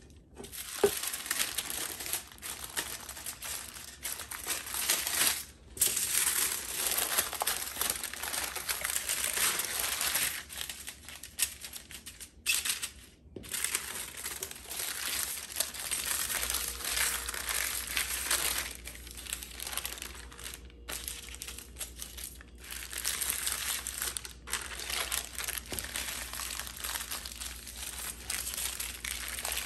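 Parchment paper crinkling and rustling as hands roll it tightly around a log of soft halwa, and later aluminium foil crinkling as the roll is wrapped, with a few brief pauses between handlings.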